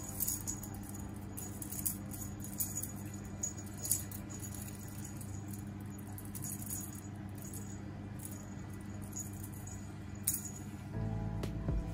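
Small plastic beads on a feather wand cat toy rattling and clicking as the toy is flicked and lands on a tile floor, with several quick clicks in the first few seconds and another about ten seconds in. Soft background music runs underneath and swells near the end.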